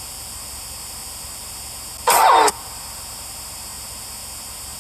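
Steady hiss throughout, broken about two seconds in by one short, loud voice-like sound that falls in pitch.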